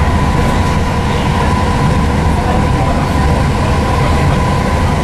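Class 323 electric multiple unit running at speed, heard from inside the carriage: a steady rumble of wheels on rail with a steady whine over it.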